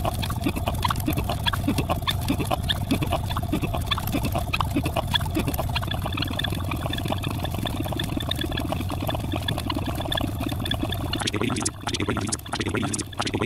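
A dense jumble of many video soundtracks layered at once: rapid clicks and short tones over a steady low hum. About eleven seconds in it turns choppy, cutting in and out several times a second.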